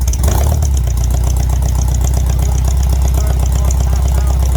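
VW trike engine, freshly tuned with a rebuilt carburetor, new plugs, cap and wires and reset timing, running at a steady idle just after starting, with an even, rapid firing pulse.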